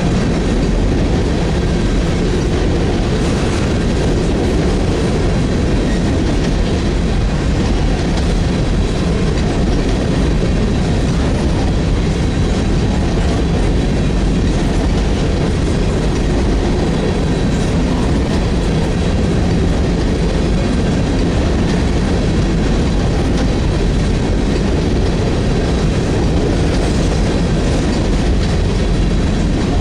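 CSX freight train cars rolling past, a steady loud rumble of wheels on rails.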